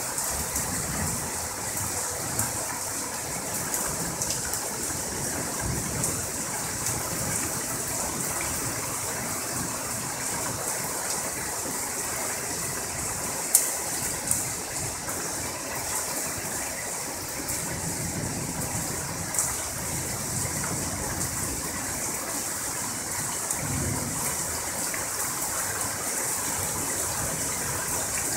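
Heavy thunderstorm rain pouring steadily, with a few sharp ticks of drops striking something near the microphone.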